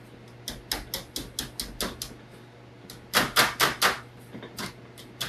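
Light, quick hammer taps on the edge of a thin steel sheet, folding a narrow lip over the table edge. The taps come in runs: several spaced evenly, a short lull, then a louder cluster of about five about three seconds in, and a few more near the end.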